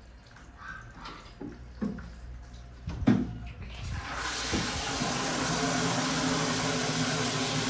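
Water from a wall tap starting to pour into a plastic bucket about four seconds in, then running steadily. Before it, a few light knocks and one sharp knock.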